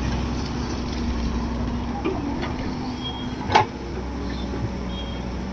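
Diesel engine of an earthmoving machine running steadily, with a single sharp knock about three and a half seconds in.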